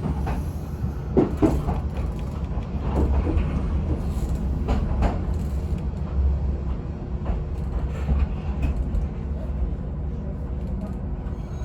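Yoro Railway electric train heard from inside the front car: a steady low rumble of the running gear, with a few short sharp clanks and squeals from wheels on the rails about 1, 3 and 5 seconds in.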